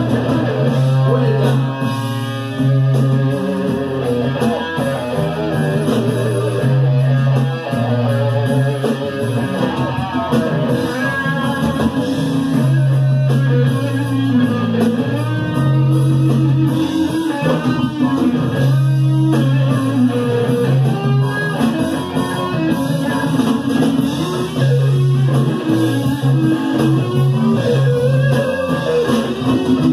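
Live rock band playing an instrumental passage: electric guitar lines over a repeating bass-guitar figure and drum kit, with no vocals.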